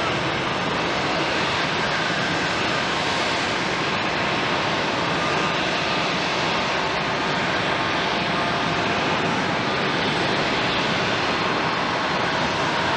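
Jet engines of a Philippine Airlines Airbus A321 airliner running at a steady level, heard as a constant, even rush of noise.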